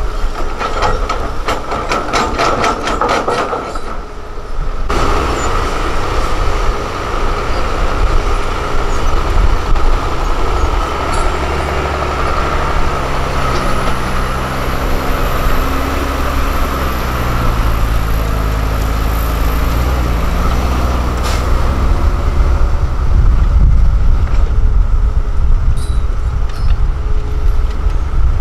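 Heavy diesel machinery running on an earthworks site: a hydraulic excavator and a loaded Scania dump truck. For the first five seconds there is a fast, even clatter, which cuts off abruptly. After that comes the steady drone of the dump truck's diesel engine pulling away under load, its pitch rising and falling as it works through the gears.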